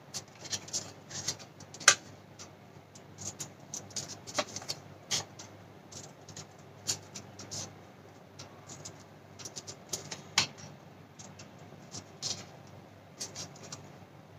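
Scissors snipping the corners and edges of a folded paper envelope: a string of short, irregular snips.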